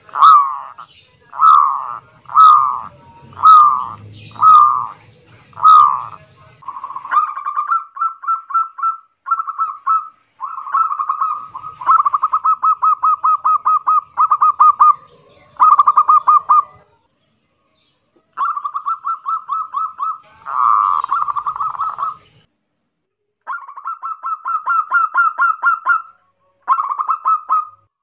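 Zebra dove (perkutut) cooing loudly in the hoarse, drawn-out 'kerot nguwor' style. It gives six separate coos about a second apart, then long runs of rapid staccato cooing notes broken by a few short pauses.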